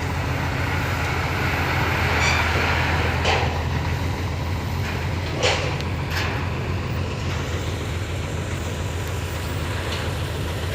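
Heavy construction vehicle's engine running steadily at a low drone, with a few sharp knocks about three, five and a half and six seconds in.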